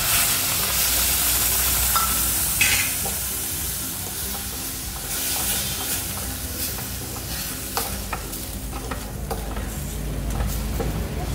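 Warm water hitting the hot roasted semolina in a kadai, sizzling and hissing loudly at first and dying down over the first few seconds, while a spatula stirs and scrapes through the mixture against the pan. This is the stage where the water goes in to cook the semolina into pulao.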